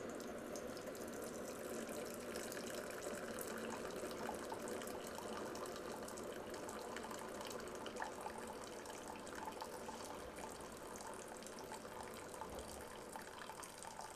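Keurig K55 single-serve coffee maker dispensing a steady stream of hot water, with no pod, into a ceramic mug: water pouring and splashing as the mug fills. It grows a little quieter near the end.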